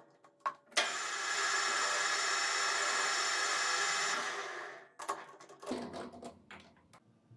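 Small metal lathe's spindle running with the three-jaw chuck turning, a steady whine for about four seconds that then winds down and stops. A few metal clicks come before it, and light clatter and knocks of handling at the lathe come after.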